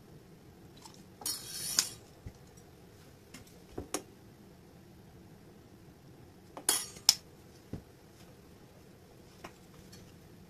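A metal measuring spoon clinking against a stainless steel mixing bowl several times, with two short hissing pours of liquid seasoning into the spoon: soy sauce about a second and a half in, vinegar about six and a half seconds in.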